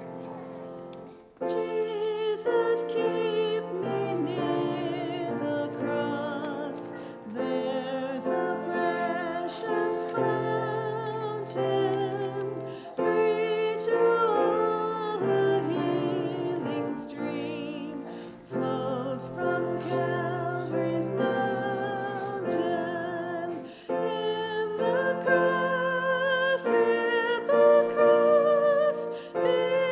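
A woman singing a solo with vibrato over piano accompaniment, in phrases broken by short pauses for breath.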